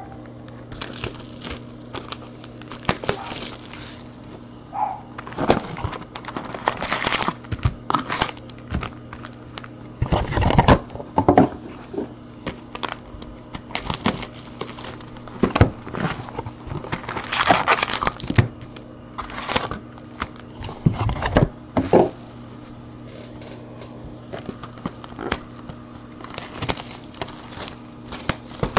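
Hands handling and opening plastic- and foil-wrapped trading card boxes and packs: irregular crinkling and rustling of the wrappers, with a couple of dull thumps as things are set down.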